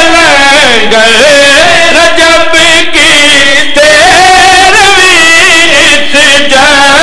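A man singing a devotional chant through a microphone, holding long notes that waver up and down, with short breaks for breath.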